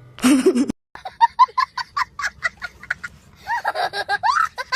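A person laughing in a quick run of short, high-pitched 'ha' bursts, about five a second, trailing into gliding voiced sounds near the end.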